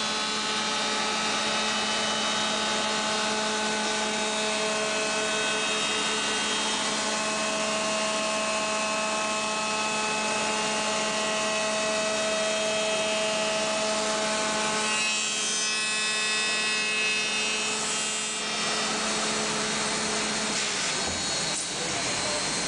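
Reichenbacher RANC 433 S CNC wood router running, its motors giving a steady whine of several high tones over a hum. About fifteen seconds in, the tones change and a rougher noise comes in.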